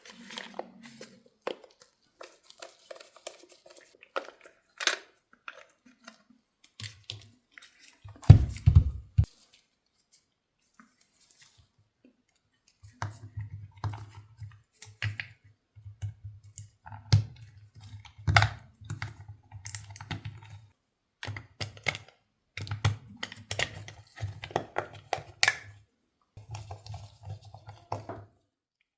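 Packaging and plastic parts being handled: irregular clicks, knocks and tearing, with a heavier thump about eight seconds in and a low rumble in stretches through the second half.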